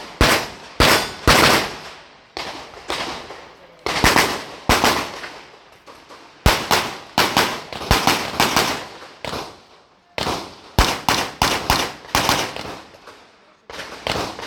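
Handgun shots fired in quick strings, often in pairs, during IPSC practical shooting. Each crack trails off in a ringing echo.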